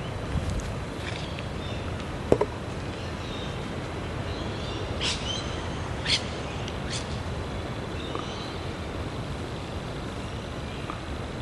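Steady hum of road traffic, with a few short, sharp bird calls about halfway through and faint chirps here and there.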